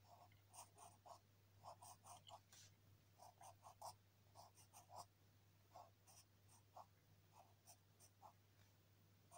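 Pencil scratching on paper in short, irregular sketching strokes, a few a second, faint, over a low steady hum.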